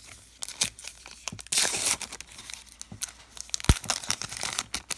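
A trading card pack wrapper torn open and crinkled by hand: a long rip about a second and a half in, with crackling of the wrapper before and after. A single dull thump just before the end is the loudest sound.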